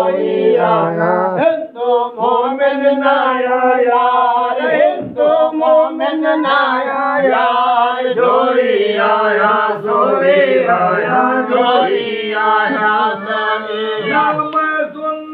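A man singing a Sindhi devotional kafi in a chant-like melody, the voice continuous and drawn out with no audible beat.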